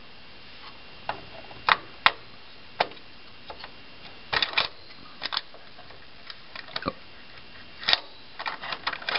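Irregular sharp clicks and taps of hard parts being handled on a computer motherboard as a Xeon processor is refitted into its socket, coming in small clusters.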